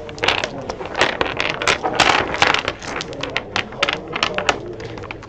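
A set of dominoes being shuffled face down on a wooden tabletop: tiles clacking against each other in quick irregular clicks, with the swish of tiles sliding across the wood.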